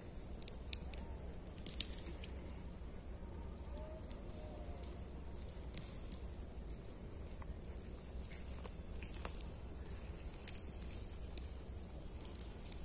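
Steady high-pitched chirring of insects, crickets, going on without a break, with a low rumble underneath and a few short clicks.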